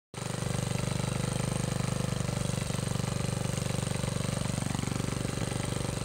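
1960 Snow Bird snowblower's engine running steadily while the machine stands still, a fast, even string of firing pulses that holds one speed throughout.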